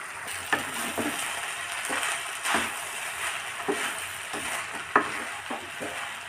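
Cooked basmati rice with peas being stirred and turned with a spatula in a metal kadhai on the stove: a steady soft sizzle under the rice, with the spatula scraping and knocking against the pan at irregular moments.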